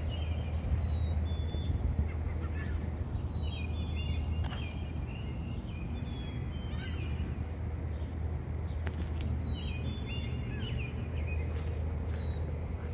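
Small birds calling in short clusters of high chirping notes every few seconds, over a steady low rumble. A faint high trill comes and goes twice.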